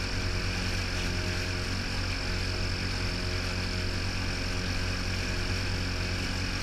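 Outboard motor running at a steady cruising speed while towing a jet ski: an even, unchanging drone, with water and wind rushing past the stern.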